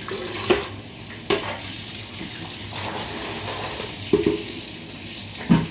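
Water running from a kitchen tap into the sink, with a few sharp knocks of dishes and kitchenware being handled.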